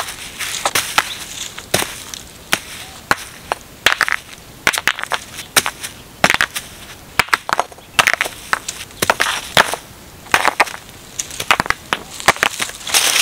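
Rocks being set down and knocked against one another while a stone fire-pit ring is built on dry leaf litter: a long series of irregular sharp knocks, with dry leaves and twigs crunching between them.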